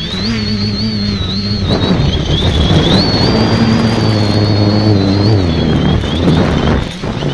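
Multicopter's electric motors and propellers whining, recorded from a camera on the craft, the pitch wavering up and down as the throttle changes. A loud rush of wind noise joins about two seconds in and drops away briefly near the end.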